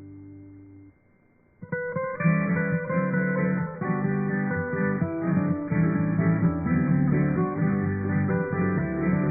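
Acoustic guitar music. A held chord fades out in the first second, there is a brief pause, and a new plucked and strummed guitar passage starts about two seconds in and carries on.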